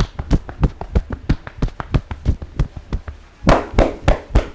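Rhythmic percussive massage strokes: a barber's hands tapping and slapping on the client at about four strokes a second. The strokes become louder and fuller about three and a half seconds in.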